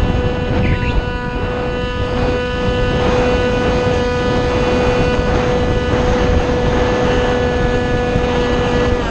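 Onboard sound of a small RC plane's motor and propeller running at a steady pitch as a constant whine, with heavy wind rumble on the plane-mounted camera's microphone.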